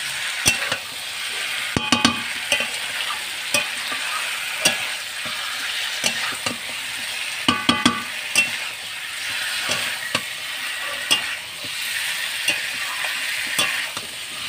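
Chicken pieces frying in masala in a metal kadai: a steady sizzle with frequent scrapes and knocks as a spatula stirs them, coating the meat in the spices. The pan rings briefly when the spatula strikes it, about two seconds in and again near eight seconds.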